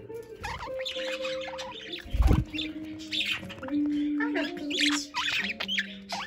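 Budgerigars chirping and chattering in quick, short high notes. A dull low thump about two seconds in.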